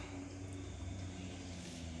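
Low, steady hum of a Mitsubishi Canter truck's engine idling.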